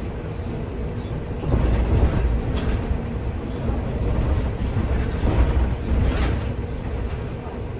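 MAN Lion's City city bus driving, heard from inside near the front: a steady low rumble of engine and road that swells louder twice as it moves along. A couple of brief rattles cut through.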